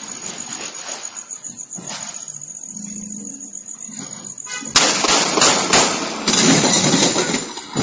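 A rapid burst of about four gunshots within about a second, starting some four and a half seconds in, picked up by a video doorbell's microphone, followed by a loud continuous noisy stretch.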